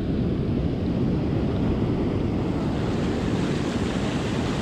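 Ocean surf washing in over the shallows with wind on the microphone: a steady, even rush of noise with no separate events.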